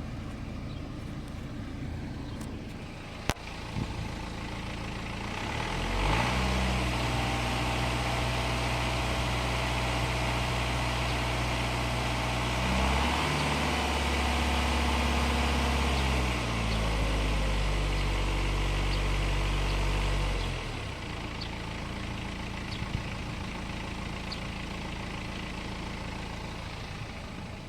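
BMW N47 four-cylinder diesel engine idling, then revved to a held higher speed for about fifteen seconds, with a brief dip partway, before dropping back to idle. It has a recently replaced timing chain, and the owner says the chain drive no longer makes any clacking, rattling or scraping noises.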